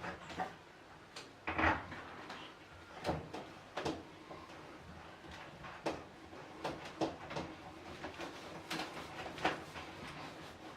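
Irregular clicks and knocks of a new washing machine inlet hose being handled and its fitting worked onto the inlet at the back of the machine.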